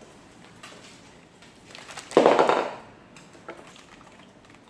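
A dog eating its snacks: one loud crunch about two seconds in, with a few faint clicks around it.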